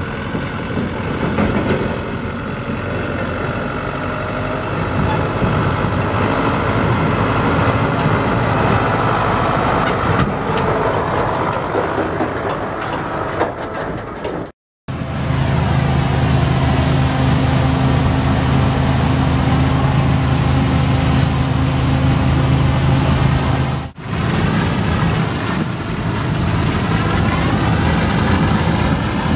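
Diesel engines of harvest machinery running, in three clips joined by abrupt cuts about halfway through and a few seconds before the end. The middle clip holds a steady, even engine hum.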